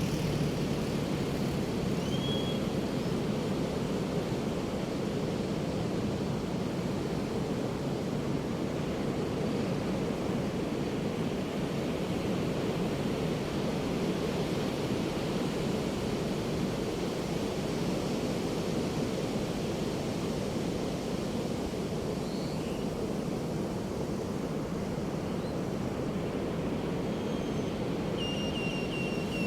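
Steady wash of Pacific surf breaking on a beach, an even rushing noise with no distinct swells. There is a brief high chirp about two seconds in and a thin, high steady call near the end.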